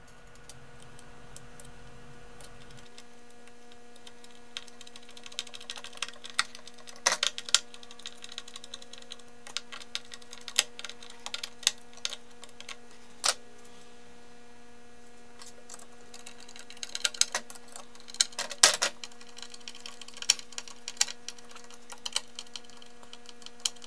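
Hand screwdriver driving binding screws into a wooden ski: scattered sharp clicks and knocks of the tool and binding, bunched in two spells, over a steady low hum.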